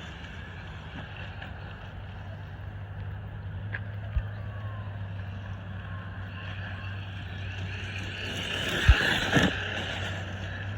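Electric RC monster truck (Traxxas Maxx) driving, its motor and tyres whirring, swelling louder about eight to nine seconds in. Sharp thumps about four seconds in and twice near nine seconds, the loudest near nine seconds.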